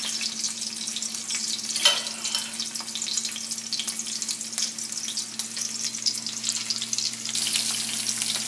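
Rolled corn-tortilla fish tacos frying in about half an inch of hot grapeseed oil in a cast-iron skillet: a steady, dense crackling sizzle that grows louder near the end. A single sharp knock comes about two seconds in.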